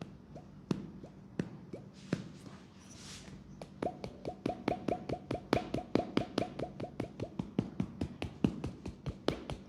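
Percussive massage strikes on a leg. Single strikes land about once a second at first, then from about four seconds in a fast, even run of strikes at about six a second.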